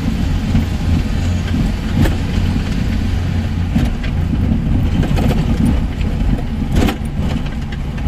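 Motor vehicle engine running with a steady low rumble while moving slowly, heard from on board. A few short knocks come through about two, four and seven seconds in.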